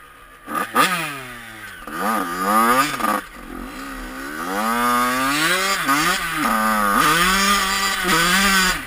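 2003 Yamaha YZ85 dirt bike's two-stroke engine revving up and down over and over: a few quick sharp blips in the first few seconds, then longer rising and falling revs.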